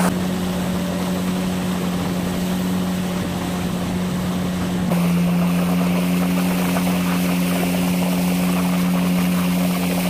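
Motorboat engine running at a steady pitch, with water rushing past the hull; its note shifts slightly about five seconds in.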